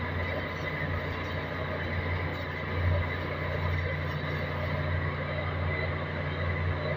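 Arc welding on a cracked main-engine exhaust valve housing: the arc crackles and sizzles steadily over a constant low machinery hum.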